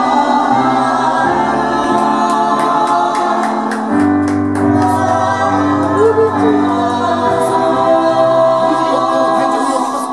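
Live rock-and-roll band with a lead singer and backing voices playing a gospel-style number: long held chords with drum cymbal strikes, the sound dropping off at the very end.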